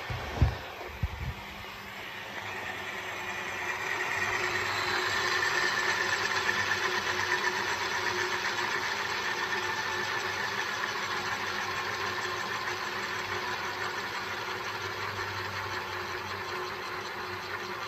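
A couple of sharp knocks in the first second, then the whine of a Lycoming T55-L-7C turboshaft engine spinning on its test stand, building over a few seconds and then slowly easing off.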